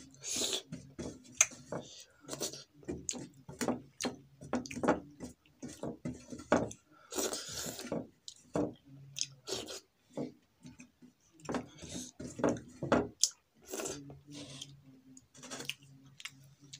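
Soupy instant noodles eaten by hand from a steel plate: a run of short wet mouth sounds and chewing, with fingers clicking and scraping against the metal plate. A longer slurp comes about seven seconds in.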